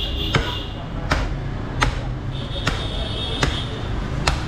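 Heavy butcher's cleaver chopping bone-in beef on a wooden log chopping block: six sharp chops in a steady rhythm, a little under a second apart.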